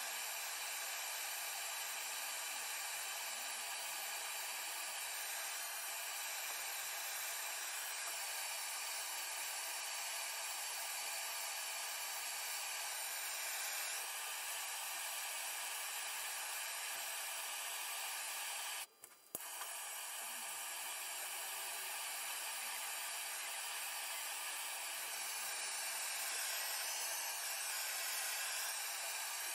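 Handheld gas blow torch burning with a steady hiss as its flame is played over the wood to scorch it. The hiss breaks off briefly about two-thirds of the way through and resumes with a click.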